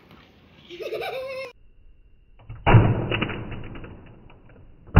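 A child's short rising vocal sound, then two sudden heavy thumps from the replayed shot of a Pie Face Cannon toy firing whipped cream into a face. Each thump trails off over a second or more and sounds muffled and dull.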